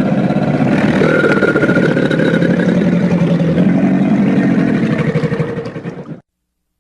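Cartoon Nile crocodile creature sound built from real crocodilian recordings: one long, rough, rattling growl lasting about six seconds, easing off slightly before it cuts off.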